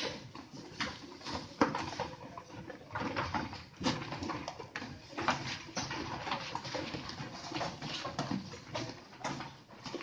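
A pen of Sojat goat kids bleating in short, irregular calls, with scattered knocks and scuffs of hooves on a raised slatted wooden floor.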